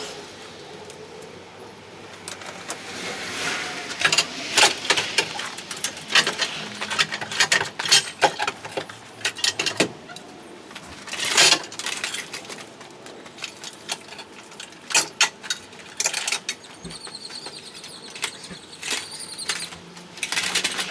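Irregular metallic clinks, clanks and knocks of tools and metal parts being handled, with a brief high squeak near the end.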